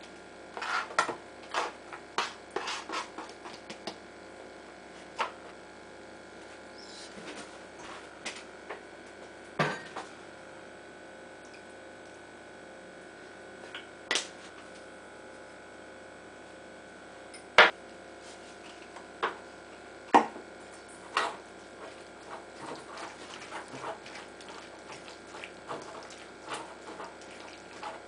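Scattered clinks and knocks of a plate and a spoon against a stainless steel mixing bowl as vegetables are tipped in and potato salad is stirred. A cluster of clinks comes at first, then a long quiet stretch, then a few sharp single clinks and a run of lighter ones near the end.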